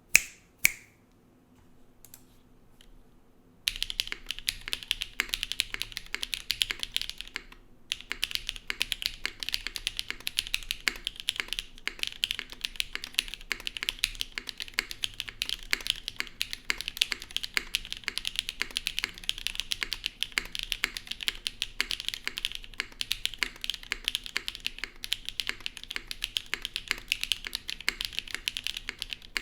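Typing on a Zoom75 mechanical keyboard with a carbon-fibre plate, gasket mount and no foam, fitted with Owlab Neon linear switches and GMK Sparta keycaps. Two loud clacks and a few scattered key taps come first. Fast continuous typing starts about four seconds in, broken by one short pause.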